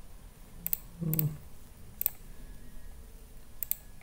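A handful of sharp computer mouse clicks, single and in quick pairs, spread over the few seconds as tiles of an image captcha are selected. There is a brief low vocal sound from a person about a second in.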